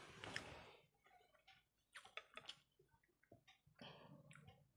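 Faint eating sounds by hand: wet clicks of chewing and fingers working rice, scattered and irregular. About four seconds in comes a brief soft scrape as a ceramic bowl of egg curry is tipped out onto the rice plate.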